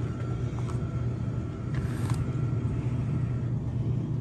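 A steady low motor hum with a few faint clicks.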